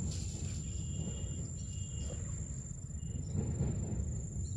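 Insects giving one steady, high-pitched drone over a low, uneven rumble.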